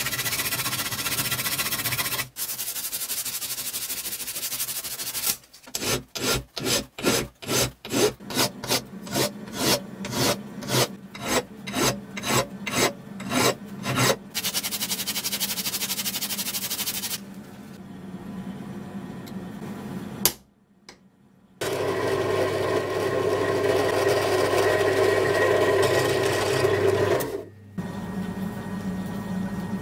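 Hand file scraping on metal parts clamped in a vise: steady filing, then even back-and-forth strokes about two a second for some nine seconds, then more filing. After a brief silence, a machine motor hums steadily.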